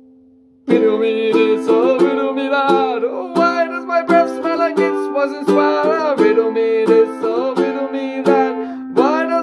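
Ukulele: a held chord fading out, then, a little under a second in, strummed hard in a quick, steady rhythm of chords.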